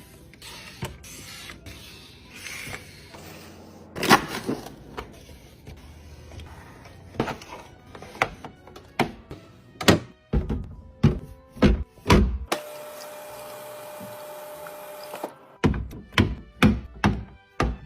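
Food containers being handled and set down in a kitchen: a series of knocks and thunks, sparse at first and then coming one or two a second in the second half. A steady hum runs for about three seconds partway through.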